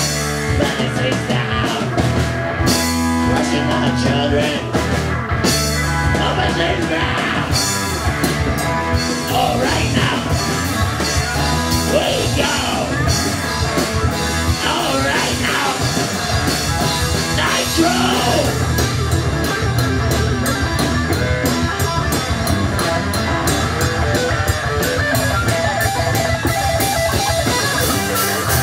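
Live punk-metal band playing a song on guitars and a drum kit.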